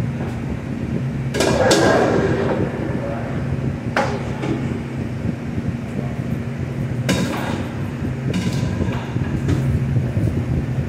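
Metal pans knocking and scraping against a stainless tilting braising pan while meat is scooped out, several sharp clanks, the biggest about a second and a half in and others around four and seven seconds, over the steady hum of the kitchen's exhaust hood.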